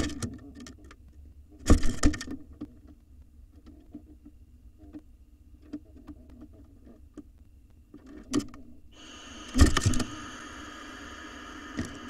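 Sharp knocks and thumps on the wooden nest box, about two seconds in and again between eight and ten seconds. From about nine seconds a barn owl's long raspy hiss sets in and carries on.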